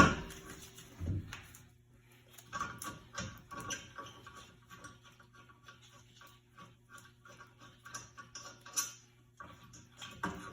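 Hand tools working on a car's rear brake assembly: a heavy knock at the start and another about a second in, then many light clicks and taps, over faint background music.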